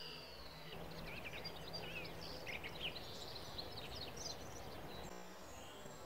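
A songbird twittering: a fast run of short high chirps and trills from about a second in until about five seconds in, over steady outdoor background noise.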